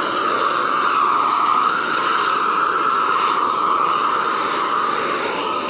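Gas-fired weed-burner torch running, a steady jet-like rushing of its flame as it burns off dry weeds.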